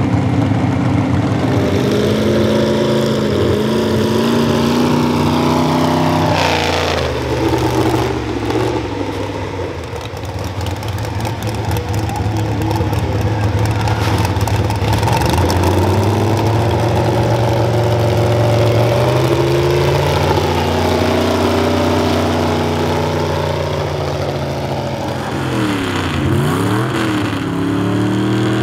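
Big pickup-truck pulling engines running and revving, steady for long stretches. The pitch sweeps near the end, dropping and climbing again, then rising as the next truck revs up on the sled.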